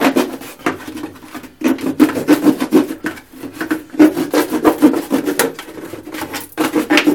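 A white plastic jug being cut open by hand, the plastic rasping in quick, repeated strokes, with a few short pauses.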